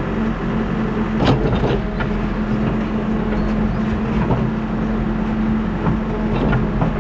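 New Holland backhoe loader's diesel engine running steadily at working revs, with a few sharp knocks about a second in and again near the end.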